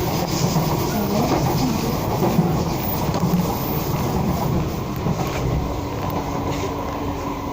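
Singapore MRT train running on the rails: a steady rumble and rail noise, growing a little quieter after about five seconds.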